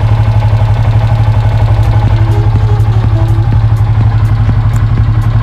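Yamaha Sniper 150's single-cylinder four-stroke engine idling steadily with a rapid, even pulse.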